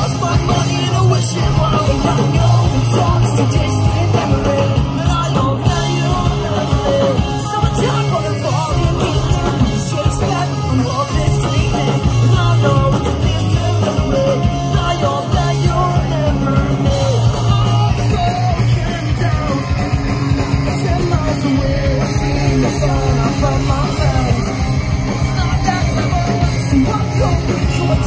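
Live punk rock band playing loud, with distorted electric guitars, bass and drums under a singer on the mic.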